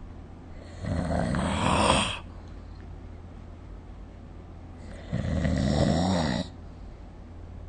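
A sleeping person snoring: two snores about four seconds apart, each lasting about a second and a half.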